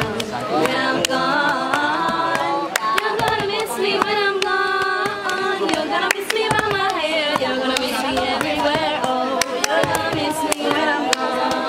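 A small group of women singing together, with sharp hand claps keeping the beat throughout.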